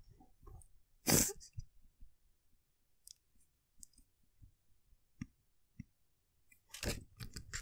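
A person's sharp breath about a second in, then a few faint mouth clicks and more short breaths near the end.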